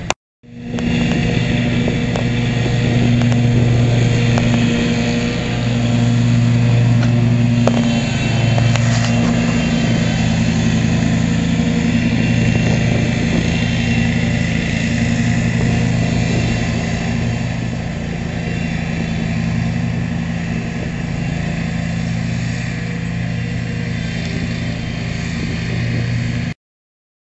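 Hustler zero-turn lawn mower engine running steadily while mowing, a low, even hum that swells and eases slightly. It starts after a brief dropout and cuts off abruptly near the end.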